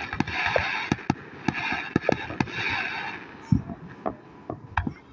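Fireworks display: a rapid run of sharp bangs over a hissing crackle, thinning to scattered bangs after about three seconds.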